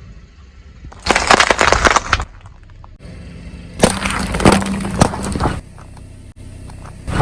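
Crunching and cracking of objects being crushed under a car's wheel, in two bursts: a short one about a second in and a longer one about four seconds in.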